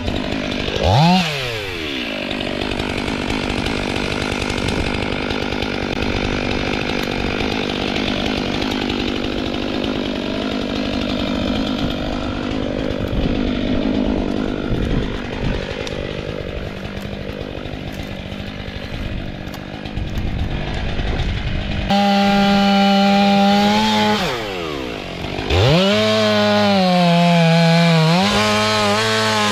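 STIHL MS 500i fuel-injected two-stroke chainsaw revving briefly, then cutting into wood under load for about twenty seconds. Near the end it screams freely at a high, steady pitch, falls off for a moment and revs back up.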